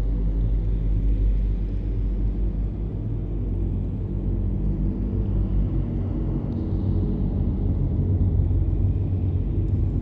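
Cave ambience: a steady low rumble, with no distinct drips standing out.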